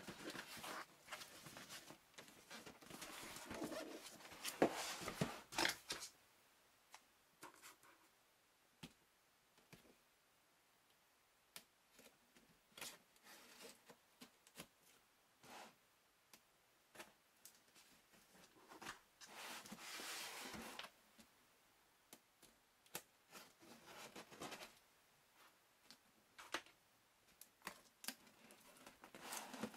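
A cardboard shipping box being opened by hand. Packing tape is peeled and slit with a small blade, with scattered taps and scrapes of fingers on the cardboard. There are two longer stretches of tearing, one in the first few seconds and one about two-thirds of the way through.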